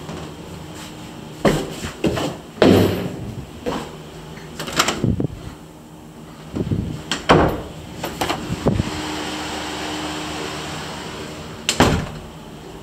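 A series of about ten sharp knocks and clunks from an interior door's knob and latch being worked and the door bumping open and shut. A steady hum runs for a couple of seconds in the latter half.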